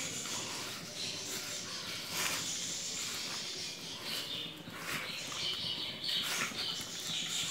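A hand mixing and squeezing thick, crumbly ground urad dal vada dough in a stainless steel bowl: irregular soft rustling and squishing with short scratchy strokes.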